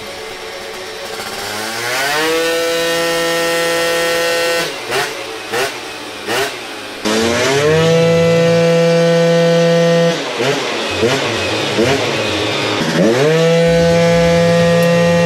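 Two-stroke Honda Elite AF16 scooter engine on a roller dyno, revved up three times. Each time its pitch sweeps up quickly and then holds as a steady high buzz for a few seconds before dropping back to an uneven, rougher running.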